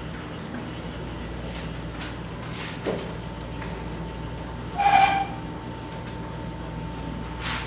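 Steady low hum of a room with a faint steady whine over it, broken by a soft knock about three seconds in and a short, louder pitched squeak about five seconds in.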